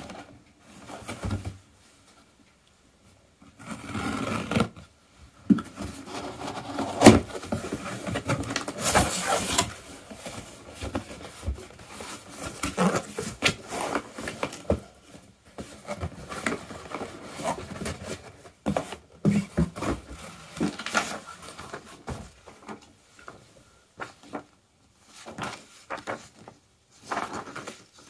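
Cardboard boxes handled and opened by hand: flaps and lids scraping and rubbing, with irregular knocks, one sharp knock about seven seconds in, and a paper sheet rustling near the end.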